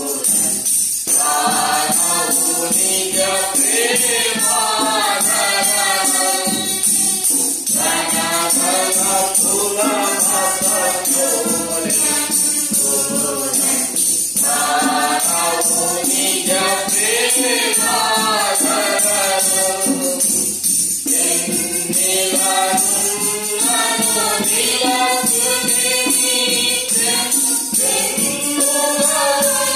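Voices singing a Christian worship song together over a steady tambourine jingle. The sung lines pause briefly about every six or seven seconds.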